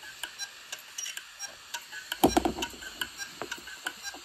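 Opened Deskstar hard drive clicking: irregular sharp ticks from the head actuator, with a louder clack about two seconds in. This is the click of death, the heads failing to read and resetting over and over.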